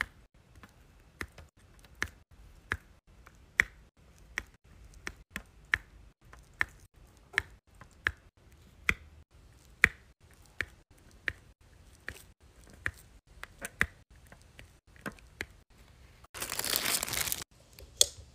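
Diamond-painting drill pen setting resin drills one at a time onto the adhesive canvas: a sharp click a little more than once a second. Near the end comes a loud crinkling rustle about a second long.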